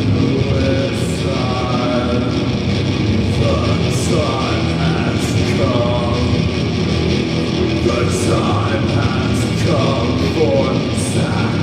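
Doom metal band playing live, loud and steady: heavily distorted guitars and bass over drums with repeated cymbal crashes, and a voice singing over it.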